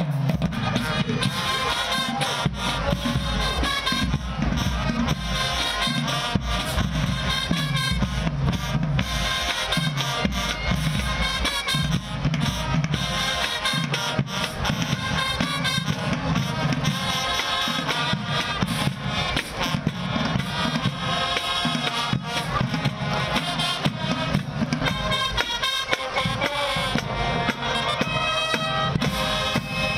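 High school marching band playing: brass and woodwinds over a drumline with bass drums.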